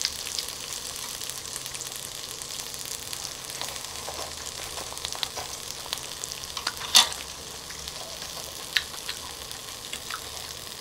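Asparagus and melting cheese sizzling on a hot grill pan: a steady frying hiss with small crackles and pops. One sharp, loud click about seven seconds in.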